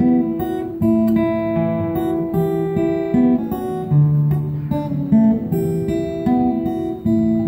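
Acoustic guitars playing the instrumental introduction to a folk ballad, with picked notes ringing over a steady strum.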